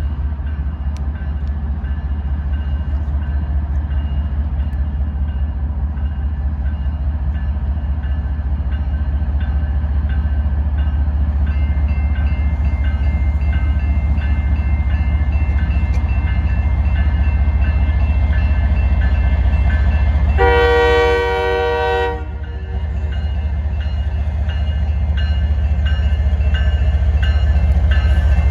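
Diesel freight locomotives running with a steady, heavy low rumble that slowly grows louder as the train draws near, with a steady high whine over it. About twenty seconds in, the locomotive's horn sounds one short blast of about a second and a half.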